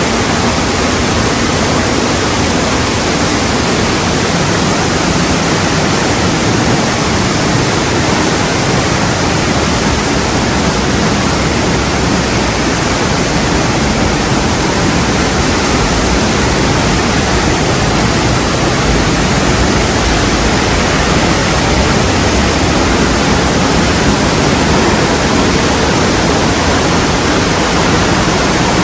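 Kaminari-daki waterfall: a heavy, continuous rush of falling water, loud and unbroken throughout.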